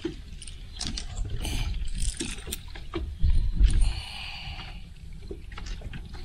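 Wind rumbling on the microphone and choppy water lapping against a boat hull, with scattered small clicks and knocks. A louder gust or splash comes about three seconds in.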